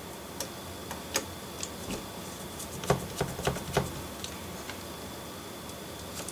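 Small screwdriver turning a screw into the metal chassis of a 00 gauge model locomotive: a scatter of light clicks and ticks, busiest around three to four seconds in.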